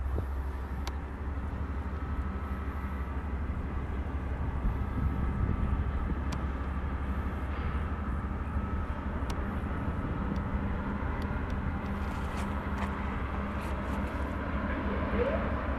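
Freight train rolling past: a steady low rumble with faint held tones above it and a few scattered clicks.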